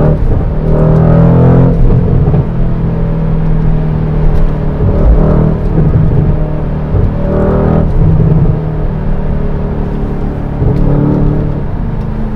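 Mercedes-AMG C63 S Estate's twin-turbo V8 and exhaust heard from inside the cabin while cruising at motorway speed: a steady engine note that swells briefly a few times, about a second in, around five seconds and again near eight seconds.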